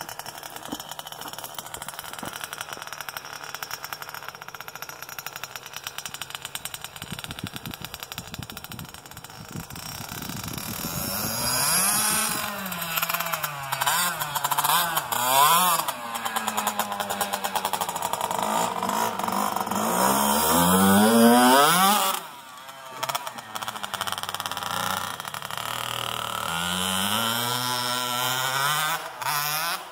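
Small dirt bike engine running and revving up and down as the bike rides around, quieter and steadier at first, then louder with repeated rises and falls in pitch. About two-thirds of the way through, a long climbing rev ends in a sudden drop, and the engine then picks up and revs again.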